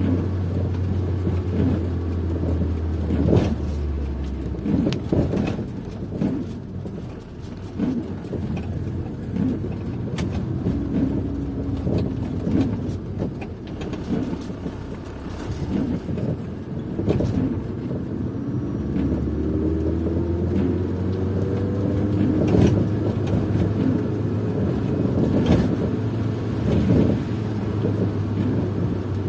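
A car driving, heard from inside the cabin: engine and road noise with frequent small knocks and thuds from the road. The steady low drone drops out about a sixth of the way in and returns about two-thirds through, when the engine note rises as the car speeds up.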